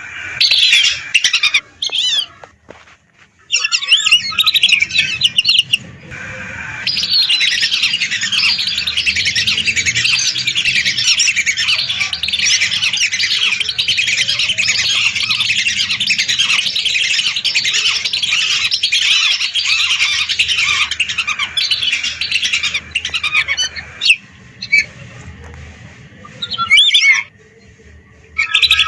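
A large flock of whistling ducks calling together, a dense, overlapping chorus of high whistles. It breaks off briefly twice in the first seven seconds, holds steady and thick through most of the middle, then thins to scattered calls near the end.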